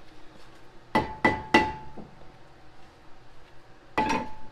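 Hammer blows on a steel brake rotor at the wheel hub: three quick strikes about a second in and one more near the end, the metal ringing after each. This is typical of knocking a stuck rotor loose from the hub.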